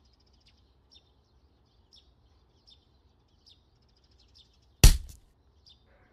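A small bird chirping faintly, short chirps about once a second, over a light outdoor hum. One sharp thump about five seconds in is the loudest sound.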